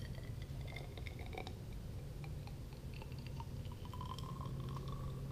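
Molten lead pouring from an electric melting pot into a copper-pipe jig mold: faint crackling and small ticks, with a faint tone that rises slightly near the end, over a steady low hum.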